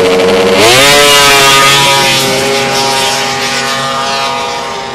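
Snowmobile engine launching: the revs rise quickly in the first second, then hold a high, steady pitch as the sled pulls away, slowly fading.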